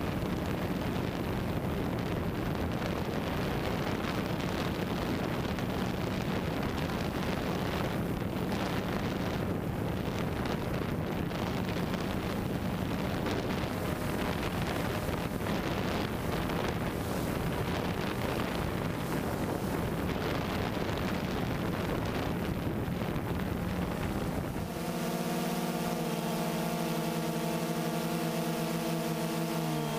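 Drone's electric motors and propellers humming steadily under heavy wind noise on the microphone. About 25 seconds in, the wind noise drops away abruptly and a steady, many-toned motor hum comes through clearly.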